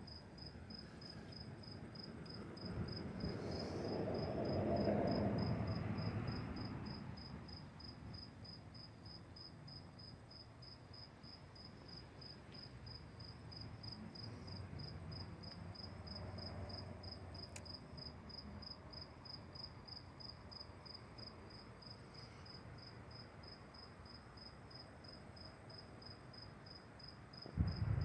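Faint cricket chirping: one high, thin note pulsing rapidly and evenly without a break. A soft low rustle swells briefly a few seconds in and again midway.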